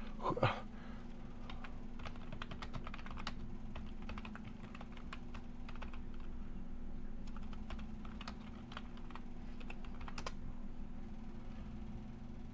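Typing on a laptop keyboard: irregular runs of key clicks that stop about two seconds before the end, over a steady low hum.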